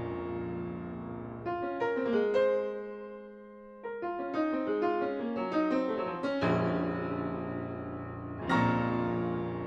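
Instrumental background music. A full sustained chord gives way to a run of higher single notes about one and a half seconds in, then new full chords are struck about six and a half and eight and a half seconds in.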